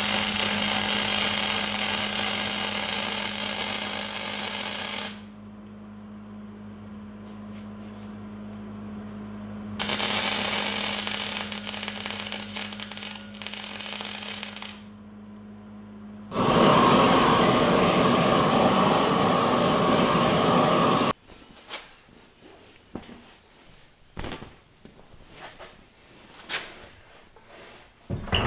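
Wire-feed welder arc crackling and sizzling as nickel 55 wire is laid on a preheated cast-iron Dana 60 differential housing. It comes in three runs of several seconds each with short pauses between, and a steady hum lies under the first two. In the last several seconds there are only soft rustles and light knocks as a fiberglass welding blanket is draped over the hot housing.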